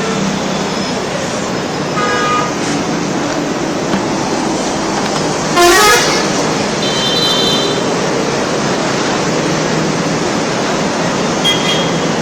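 Steady road-traffic noise with vehicle horns honking now and then: a short toot about two seconds in, a louder horn that rises in pitch just before six seconds, and a high beep about seven seconds in.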